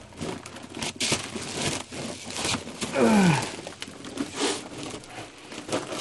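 Irregular plastic crinkling and scuffing of someone crawling over dirt beside plastic bags of drainage rock and plastic sheeting. A short vocal sound falls steeply in pitch about three seconds in.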